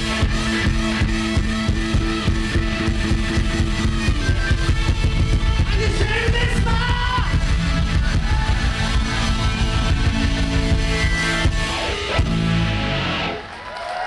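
Live rock band playing loudly: electric guitar over a steady drum beat. The song ends about a second before the close, the sound dropping away suddenly.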